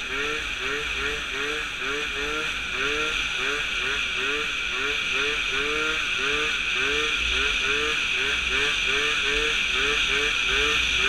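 Piaggio Zip's tuned 70cc two-stroke engine, with a handmade expansion-chamber exhaust, running hard under way, its pitch sweeping up and dropping back over and over, about twice a second, over a steady hiss.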